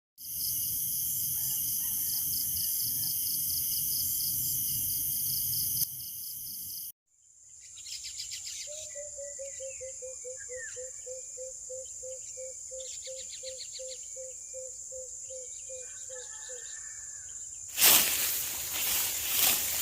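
Insects trilling steadily in the countryside, with a few short bird chirps. In the middle an animal repeats a low piping note about three times a second for several seconds. Near the end, a sudden loud stretch of rustling or wind noise takes over.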